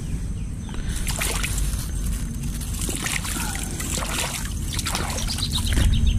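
Water sloshing and splashing in irregular bursts, with trickling, as freshly caught piranhas are washed by hand.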